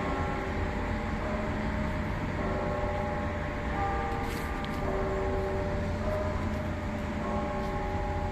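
Church bells ringing, several bells at different pitches sounding in turn with long held tones, over a steady low rumble.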